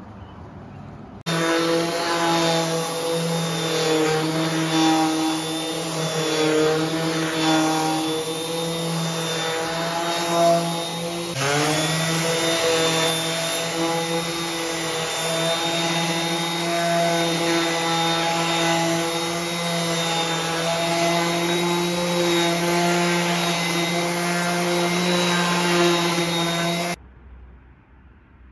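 Corded random orbital sander running steadily against welded steel, sanding the bumper's weld seams smooth. It starts abruptly about a second in, briefly breaks and sweeps up in pitch near the middle, and cuts off shortly before the end.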